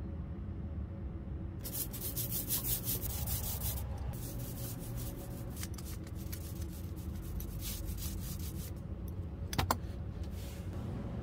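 A spatula scraping paste across a carved wooden stamping block in quick repeated strokes, then a single sharp knock near the end.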